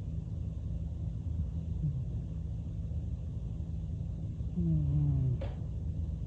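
A Selkirk Rex cat snoring in its sleep: a faint snore about two seconds in and a louder one, dropping in pitch, near the end, over a steady low rumble. A brief click follows the louder snore.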